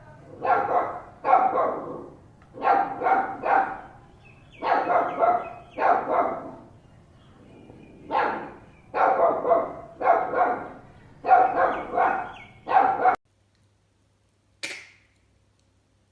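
A puppy barking repeatedly in quick runs of two or three, then stopping abruptly about thirteen seconds in. A single short sound follows soon after.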